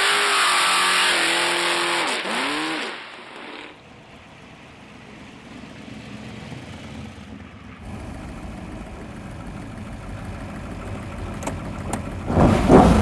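Supercharged V8 of a 1932 Ford roadster hot rod accelerating past, its pitch climbing and dropping over the first few seconds, then falling back to a much quieter low rumble. A short louder burst comes near the end.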